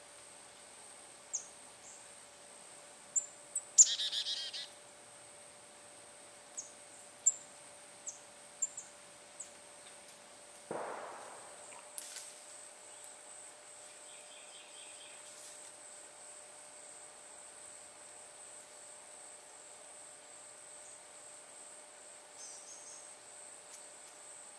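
Songbirds giving short, sharp chip calls scattered through the first half, with a louder brief chattering call about four seconds in and a quick run of notes later on, over a steady high-pitched insect drone.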